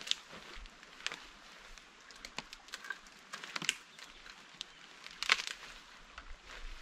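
Irregular snaps and cracks of dead twigs and sticks being handled and broken, a few each second, the loudest about five seconds in.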